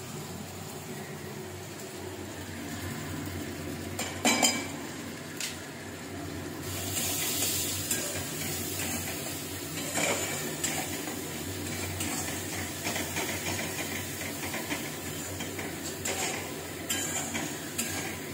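A spatula stirring and scraping tomato masala frying in a steel wok, with a steady sizzle. There is a clatter about four seconds in. The sizzle gets louder about seven seconds in as the spice powders go into the hot pan, followed by occasional knocks of the spatula against the wok.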